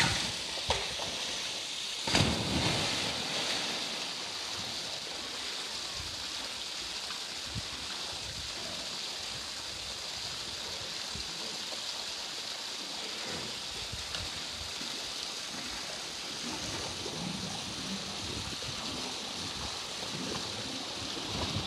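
Polar bear splashing in a pool while playing with a plastic float toy: a sharp splash at the start and a louder one about two seconds in, then a steady rush and lapping of pool water as it swims.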